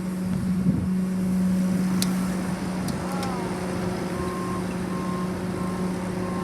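Heavy vehicle engines running with a steady hum. From about four seconds in, a reversing alarm beeps in an even series.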